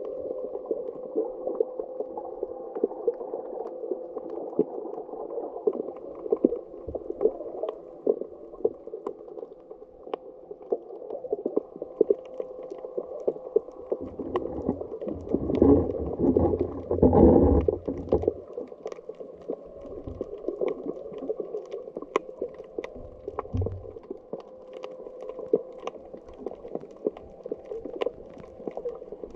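Muffled underwater sound picked up by a camera in a waterproof housing: a dull, steady rush with scattered faint clicks. About halfway through there is a louder, deeper surge lasting a few seconds.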